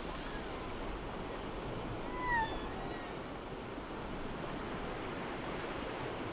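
Sea water washing around a kayak in small surf, an even rush of noise, with a short high call that rises and falls in pitch about two seconds in.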